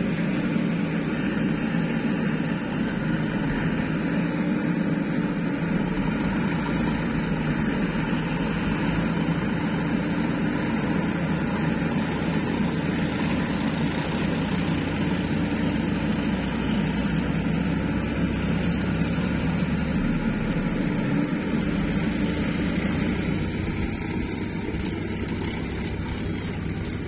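Diesel engine of a JCB backhoe loader running steadily under load while it shoves mud with its front bucket, easing off a little near the end.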